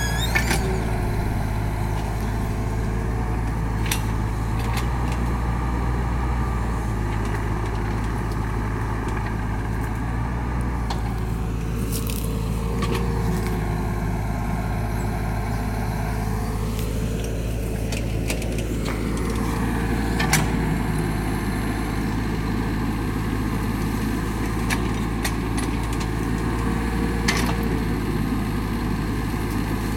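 Mini excavator's diesel engine running steadily under hydraulic load while it digs hard clay soil, the pitch dipping and rising once midway, with a few sharp knocks from the bucket working the ground.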